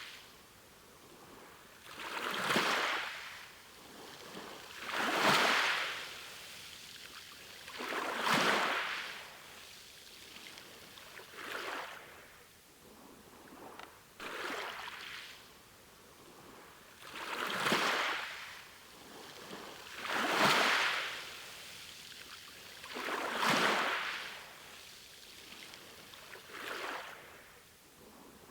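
Sea waves washing in on the shore. Each swell of surf rises and fades over a second or two, about every three seconds.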